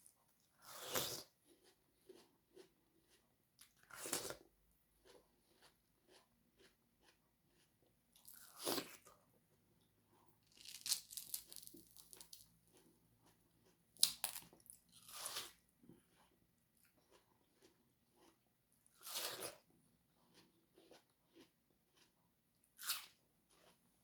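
Close-miked bites into fresh watermelon, crunching about eight times, spread out, with faint chewing clicks in between.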